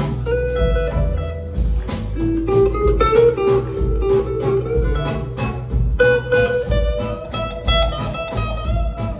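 A live blues band plays: electric guitar lead lines over bass and a steady drum beat.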